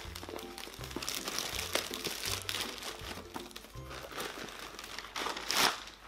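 Plastic mailer bag crinkling and rustling as a box is pulled out of it, louder about five and a half seconds in, over background music with a repeating bass line.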